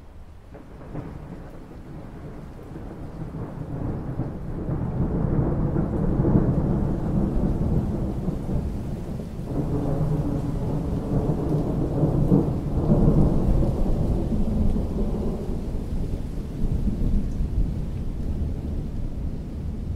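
A long, deep roll of thunder over rain falling on water. It swells from about a second in, rumbles with several peaks for well over ten seconds, and eases off near the end.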